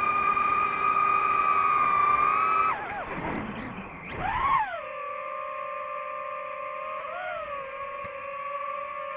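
DJI FPV drone's motors and propellers whining at a steady pitch. About three seconds in the pitch drops and swoops up and down as the throttle changes through a manoeuvre. The whine then settles at a lower, quieter steady pitch.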